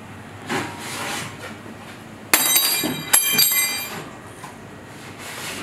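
Two sharp metal clanks, the second about a second after the first, each leaving a bright ringing that dies away within a second: metal kitchenware knocked against a stainless-steel counter. A soft rustle comes just before, near the start.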